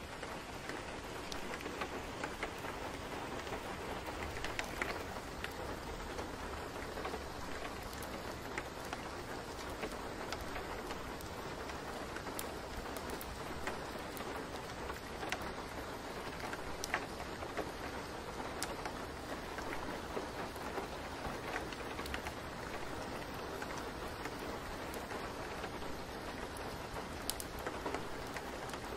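Steady rain falling, an even hiss with scattered drop ticks throughout.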